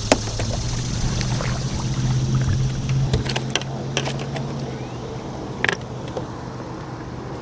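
An engine running steadily, with scattered clicks and knocks over it, the sharpest near the start and about two thirds of the way in.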